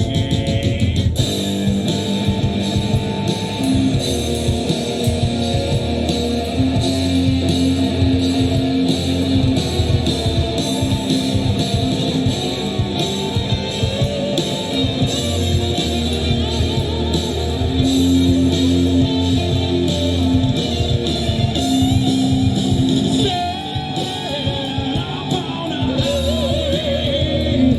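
Live rock band playing a song, guitar-led over a steady beat.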